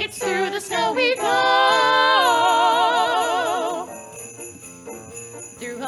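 Close-harmony singing by three women's voices: after a few short notes they hold a chord with vibrato, stepping down once, then drop out after about four seconds. Sleigh bells jingle throughout.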